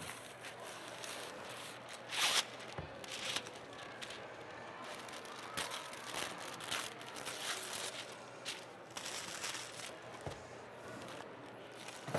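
Parchment paper being pulled off its roll and torn from the box, rustling and crinkling in a series of short bursts, the loudest about two seconds in.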